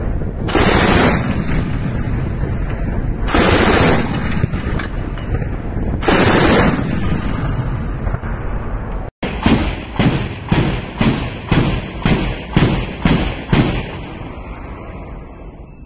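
Anti-aircraft autocannon firing: three long bursts about three seconds apart, then a string of about a dozen separate shots roughly two a second that fade out near the end.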